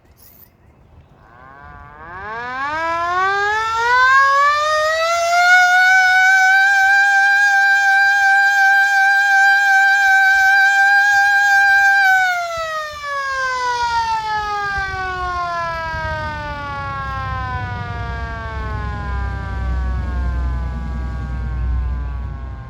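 Red hand-crank siren cranked up from nothing to a steady high wail, held for about eight seconds, then left to coast down in a long falling tone. A low rumble comes in as it winds down.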